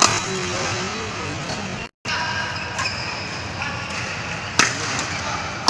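Badminton rackets hitting a shuttlecock during a doubles rally: a few sharp, short hits, the loudest about four and a half seconds in, over the steady noise of a large sports hall with voices in the background. The sound cuts out completely for a moment about two seconds in.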